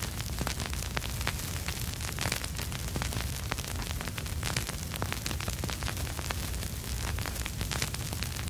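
Vinyl record surface noise: dense, irregular crackles and pops over a steady hiss and low rumble.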